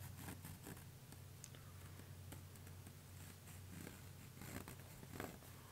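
Faint scratching of a pencil tracing around a paper pattern on vegetable-tanned leather, with soft rustles of the paper, over a low steady hum.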